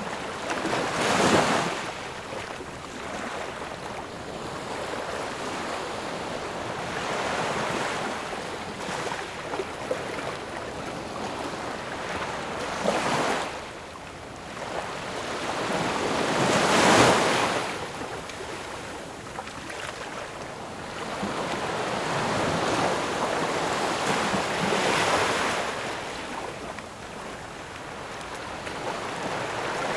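Ocean waves breaking on a shore: a steady wash of surf with several waves surging and fading. The loudest one crashes a little past halfway.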